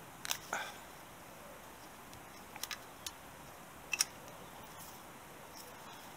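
A few light clicks and taps, two close together about two and a half seconds in and the sharpest about four seconds in, from gloved hands handling the motorcycle wiring loom's plastic-sleeved bullet connectors against the frame.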